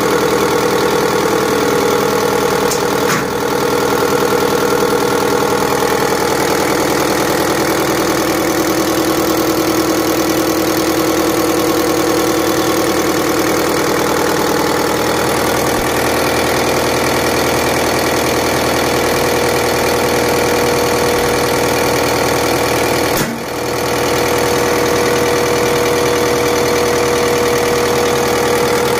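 Zexel inline diesel injection pump for an Isuzu 4JB1 being run on an injection-pump test bench, the bench drive turning it at steady speed: a loud, steady mechanical hum with a clear whine. The tone shifts about halfway through, and the level dips briefly twice.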